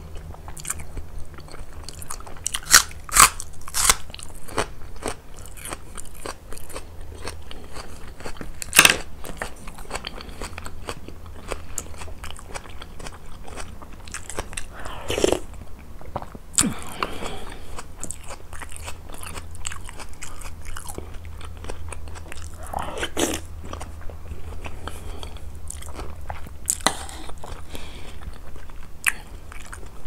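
Close-miked eating: loud crisp crunching bites into a raw white onion and chewing, with wetter chewing of chicken and rice in yogurt sauce in between. A steady low hum sits under it.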